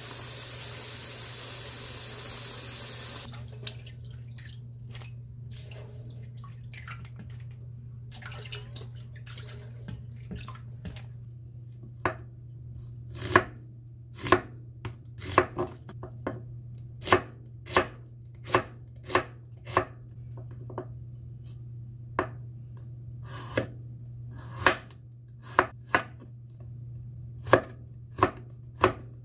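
A kitchen knife slicing an onion and then a carrot into thin strips on an end-grain wooden cutting board: a series of sharp knocks of the blade on the board, light and sparse at first, then louder at about one a second from about twelve seconds in. Water running in a sink hisses steadily for the first three seconds and cuts off suddenly, and a steady low hum runs underneath.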